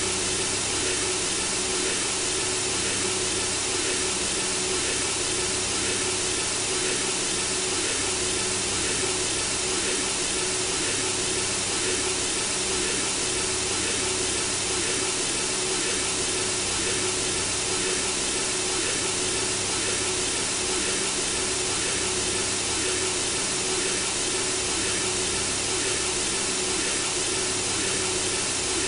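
Synthesizer-generated white noise: a steady, even hiss with a faint steady hum tone underneath, made to mimic the rush of blood in the womb and lull a baby to sleep.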